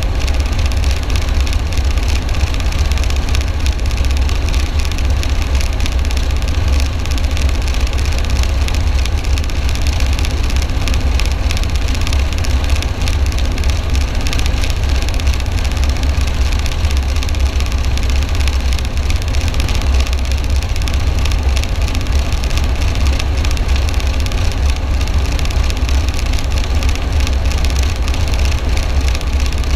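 Military helicopter running steadily and loud, a constant deep rumble under dense rotor and engine noise that does not change.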